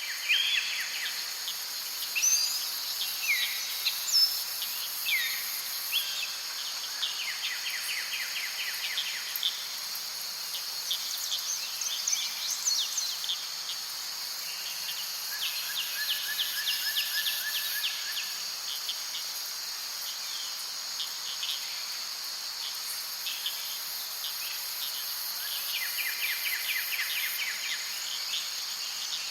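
Forest ambience: insects droning steadily at a high pitch, with birds calling over it in quick trills and short chirps that come in clusters through the first half and again near the end.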